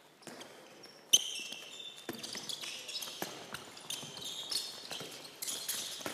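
Handball drill on a sports hall floor: indoor shoes squeaking in short high chirps as players cut and brake, with handballs thudding and being caught. A sharp slap about a second in is the loudest sound.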